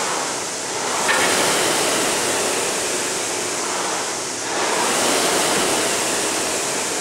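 Indoor rowing machine's flywheel whooshing as it is rowed, swelling with each pull: about a second in and again near five seconds.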